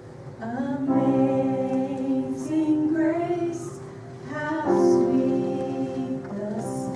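A woman singing slow, drawn-out phrases over sustained keyboard accompaniment, with each phrase starting on a sliding rise in pitch.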